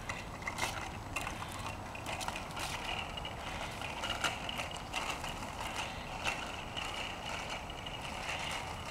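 A small child's bicycle with training wheels rolling on asphalt: irregular light clicks and rattles over a faint steady hiss.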